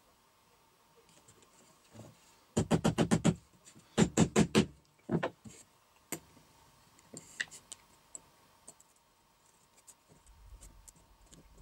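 Hammer striking a steel T-nut into a drilled hole in a pine strip: a quick run of about eight taps, a second run of about five, then one last tap. Faint clicks and rustles of handling follow.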